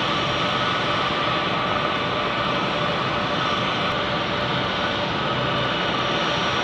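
Jet engines of C-17 Globemaster III transports, Pratt & Whitney F117 turbofans, running steadily at taxi power: a steady high whine over an even rushing noise.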